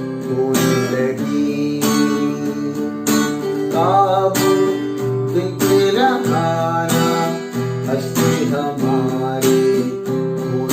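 Acoustic guitar strummed through a G–Em–C–D chord progression, with a voice singing a melody over it for a couple of seconds in the middle.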